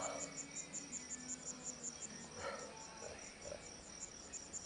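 A cricket chirping steadily at night, a high pulsed trill of about five chirps a second.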